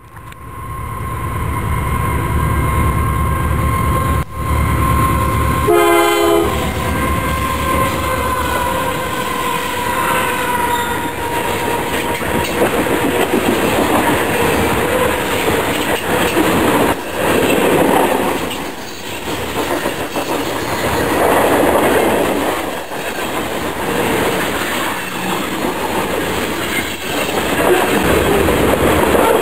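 Westbound grain train led by GE AC44CW diesel locomotives passing close by: first a heavy engine rumble with a steady tone that drops slightly in pitch about ten seconds in as the locomotives go by, then loaded covered hopper cars rolling over a steel bridge with a continuous rhythmic wheel clatter.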